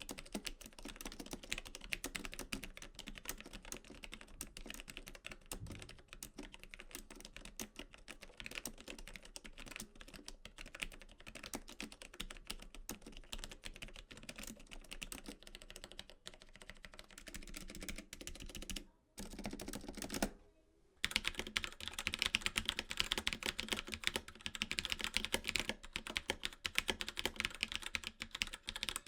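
Fast continuous typing on a mechanical keyboard with linear switches, key presses clacking rapidly. About nineteen seconds in there is a brief gap, after which the typing comes back louder and brighter.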